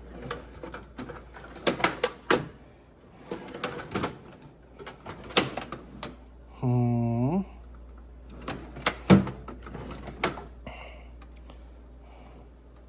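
Hands rummaging through a bin of tire-repair tools and supplies, with repeated clicks, knocks and clattering of small items. Near the middle comes a short voiced hum that rises in pitch at its end.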